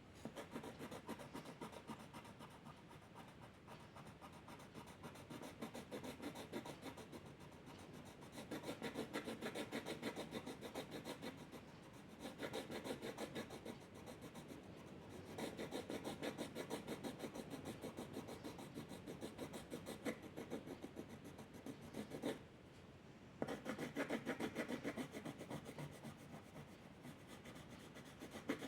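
Drawing tool scratching on paper in rapid back-and-forth shading strokes, in spells that grow louder and ease off, with a short pause a little past two-thirds of the way through.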